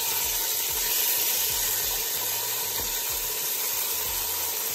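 Marinated beef short ribs sizzling in hot oil as they sear and caramelize, a steady hiss.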